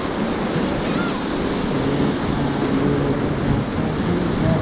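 Steady rush of whitewater river rapids, with wind on the microphone.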